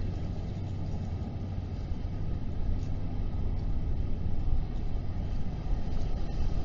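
Steady low outdoor rumble of distant engines and traffic, with no distinct events.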